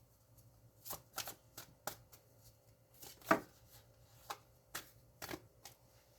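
A tarot deck being shuffled and handled: a string of irregular soft card slaps and clicks, the loudest about midway through.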